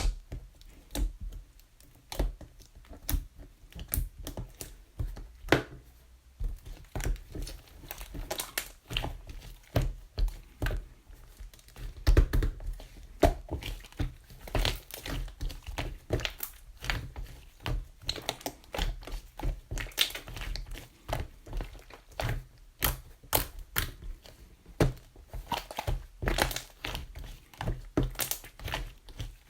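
Irregular sharp clicks and knocks, often several a second, with short pauses between runs.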